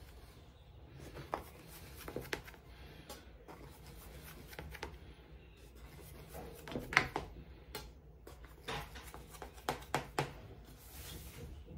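Knife cutting through the layered dough of a tray of unbaked baklava, making faint, scattered clicks and scrapes.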